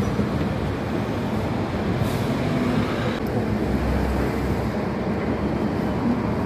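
Hong Kong double-decker tram running along the rails, a steady rumble of the wheels and car body heard from inside the upper deck, with a brief hiss about two seconds in.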